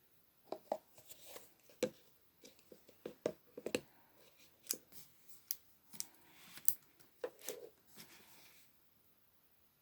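Slime being squeezed and poked by hand, giving an irregular run of sharp clicks and pops that stops near the end.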